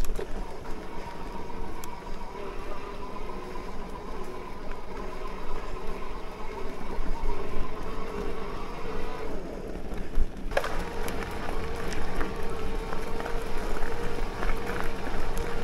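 Electric mountain bike in motion: the motor's steady whine over tyre and wind noise, with a sharp click about ten seconds in, after which the whine runs on.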